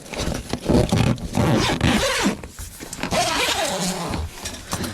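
Zip on a pop-top roof's canvas side being pulled open, a rough rasping that comes in several pulls.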